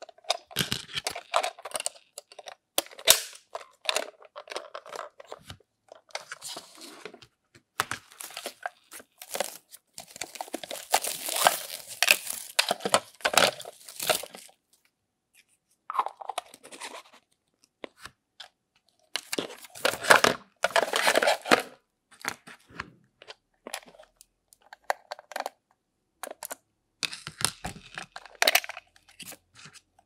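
Unboxing sounds: white foam mesh packaging sleeves rustling and crinkling as they are handled, with sharp clicks and taps from small plastic toy appliance parts and battery covers. The rustling comes in longer spells about a third of the way in and again about two-thirds of the way in, with short quiet gaps.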